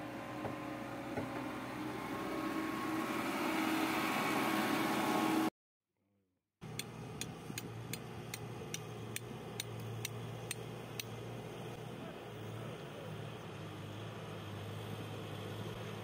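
Backhoe loader diesel engine running and growing louder as the machine drives. It then cuts to about a second of silence, followed by a second backhoe loader's engine running steadily, with a quick run of regular sharp clicks, about three a second, for a few seconds after the cut.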